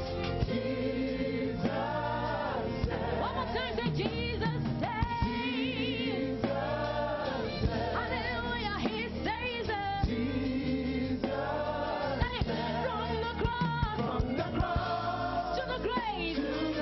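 Gospel praise and worship music: singers with vibrato over a steady band accompaniment.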